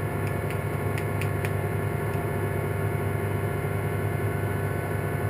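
Steady low hum and whir of a running machine, with a few faint clicks in the first second and a half.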